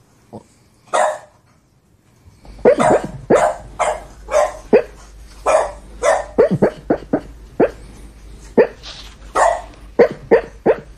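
Boston terrier barking: two lone barks, then from about two and a half seconds in a fast run of sharp barks, about two a second, over a low steady hum.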